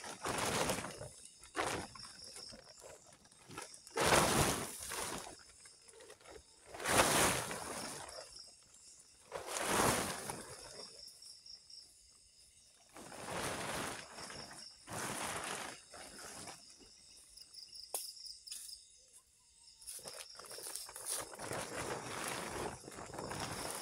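Blue plastic tarp rustling and crinkling in repeated bursts as it is pulled and draped over a ridgeline. Insects chirp steadily behind it.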